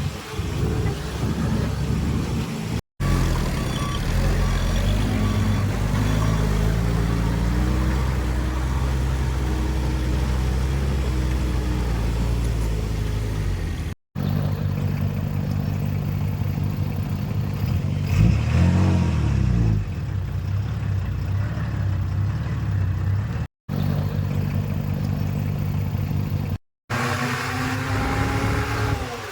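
Heavy diesel engines of earthmoving machines running under load, in several clips joined by abrupt cuts. About two-thirds of the way through, one engine revs up and back down.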